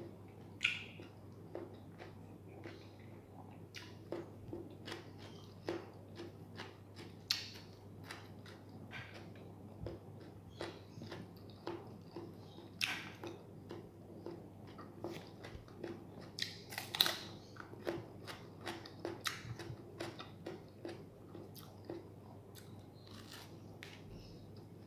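A person chewing a mouthful of bread sandwich with egg, cheese and tomato: soft mouth smacks in a steady rhythm of about two a second, with a few sharper crisp bites.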